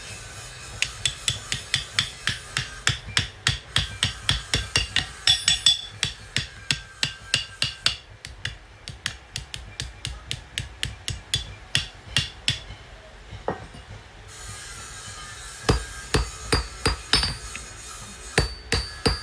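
Hammer striking metal in steady blows, two or three a second, each with a short metallic ring. The blows stop for a few seconds past the middle, then a handful more come near the end.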